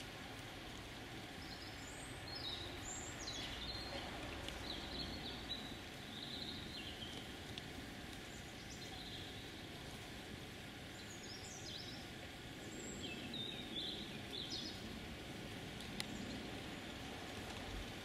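Quiet outdoor ambience with a steady low background hum, and small birds chirping in short scattered calls, in two spells.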